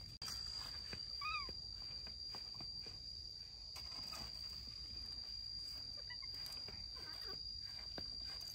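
Outdoor ambience under a steady high-pitched whine, with a short rising-then-falling animal squeak about a second in and a fainter one about six seconds in, amid soft rustling.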